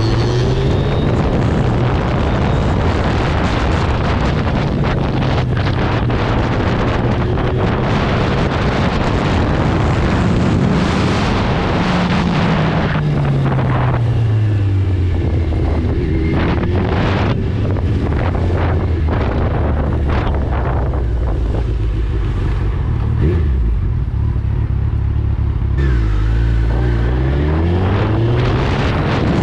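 Suzuki Hayabusa's inline-four engine heard from the rider's seat while riding. The revs fall about halfway through as the bike slows and climb again near the end, with wind noise on the microphone.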